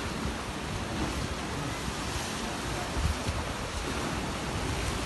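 Wind buffeting the microphone in uneven low gusts over a steady wash of sea water and waves.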